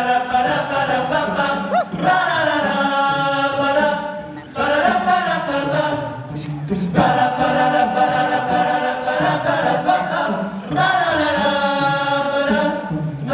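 Male a cappella group singing in close chords through handheld microphones, in phrases of a few seconds with brief breaks between them.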